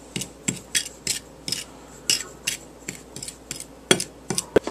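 A utensil stirring dry breading (cornmeal, flour, salt and pepper) in a bowl: quick, repeated scrapes and clinks against the bowl, about two to three a second, with a couple of sharper knocks near the end.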